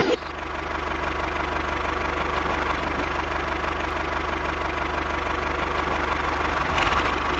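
Tractor engine running steadily at idle, with a fast, even low beat.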